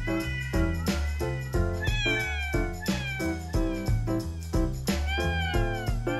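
Upbeat background music with a steady beat, with cat meows heard over it several times.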